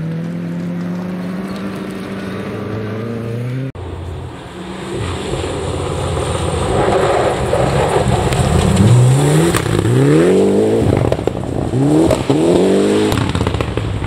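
Rally cars on a gravel stage: first one car's engine holding a steady note, then after a cut a second rally car approaching and sliding through a corner, its revs climbing and falling several times in quick succession over the hiss of tyres and thrown gravel.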